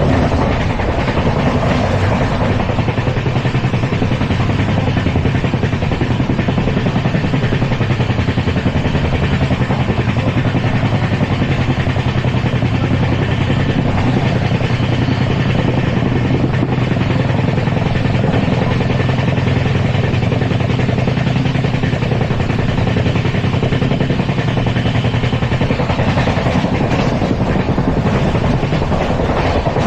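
LHB passenger coach running at speed on the track: a loud, steady rumble of wheels on rail that does not let up.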